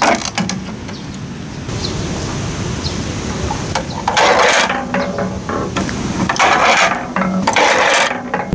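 A ball rolling down a plastic marble-run slope and round a loop, heard as three loud rolling rushes from about four seconds in, over a steady low rumble. A sharp click comes right at the start as the plastic track pieces are handled.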